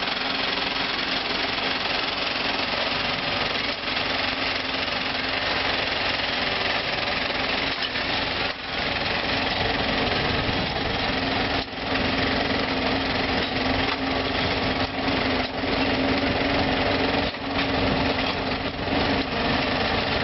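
Sod harvester at work cutting and lifting turf: a steady engine hum under a dense, rapid mechanical clatter, with a few brief dips in level.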